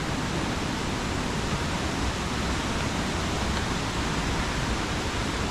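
Steady rush of a waterfall, an even, unbroken noise of falling water.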